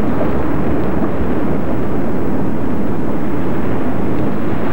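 Molten basalt lava spattering and fountaining in a Hawaiian lava-filled crater, making a steady, loud rushing noise that is deepest in the low range.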